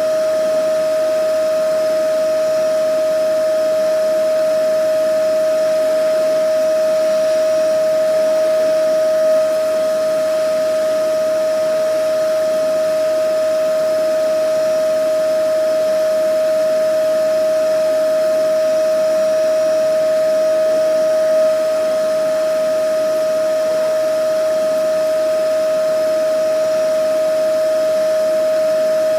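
Vacuum cleaner running steadily: a constant mid-pitched motor whine over the rush of airflow, unchanging throughout.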